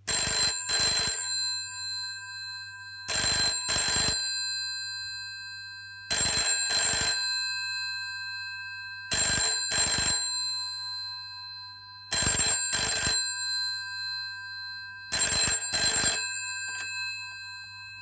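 GPO 782 telephone's electromechanical bells, refitted with older GPO 746 bells, ringing for an incoming call in the British double-ring pattern: six double rings, one every three seconds, the bell tones ringing on and fading between them.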